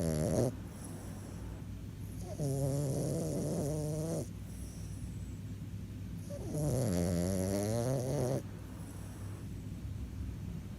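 French bulldog snoring in its sleep: a snore trails off just at the start, then two long pitched snores of about two seconds each, some four seconds apart, with quieter breathing between. Loud snoring like this is typical of the breed's short, flat-faced airway.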